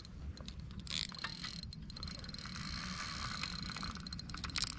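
Fishing reel clicking as a hooked bass is fought and reeled in, with a short rush of noise about a second in.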